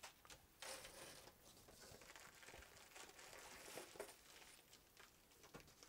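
Faint crinkling of a plastic bag and bubble wrap being handled, with a light tap about four seconds in.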